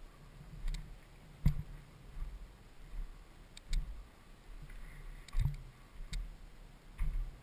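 Slow, irregular footsteps on loose gravel and rock rubble, with a few sharp knocks and scuffs.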